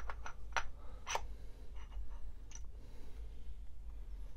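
Small clicks and taps of parts being handled and fitted onto the top of a Turin SD40 coffee grinder as its hopper is put on: several sharp clicks in the first second or so, then a few fainter ones.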